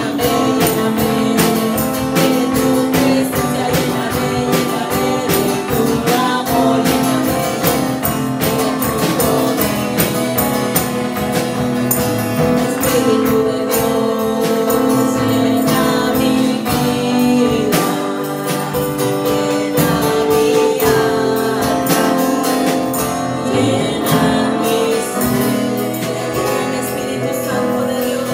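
Live church worship band playing and singing a praise song: women's voices over drum kit and acoustic guitar, with a steady beat.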